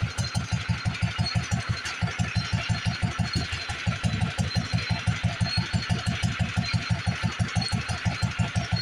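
International Harvester 3-5 hp LA single-cylinder stationary engine running steadily at a slow display speed under the load of a lineshaft, its exhaust beating about six times a second, with a couple of brief breaks in the beat.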